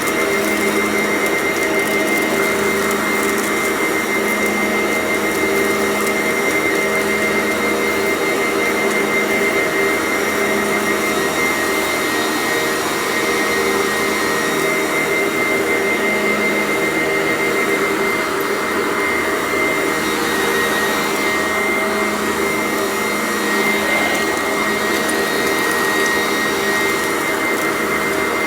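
Sanitaire vacuum cleaner running continuously while vacuuming up crunchy debris, with a steady high motor whine over a rushing hiss. A low hum swells and fades about every two seconds.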